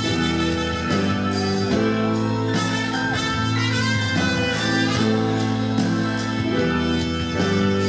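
Live concert music played through a hall's sound system: sustained melodic notes with slides, over a steady bass, with no singing.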